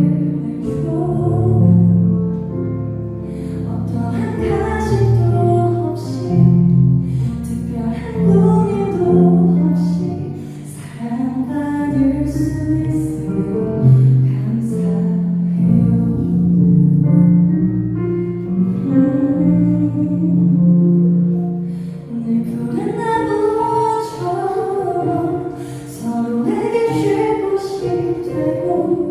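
A singer performing a song over instrumental accompaniment, with long held notes.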